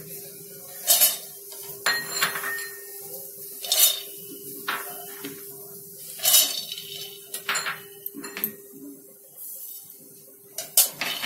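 Nuts and cumin being tipped into a dry steel kadhai and the steel slotted spatula knocking against it: about eight separate sharp clatters of hard pieces and metal on metal, over a steady low hum.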